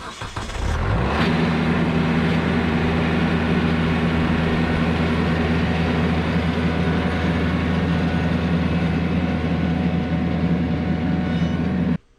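A vehicle engine starts, rises in speed over the first second, then runs steadily at a constant speed before stopping abruptly near the end.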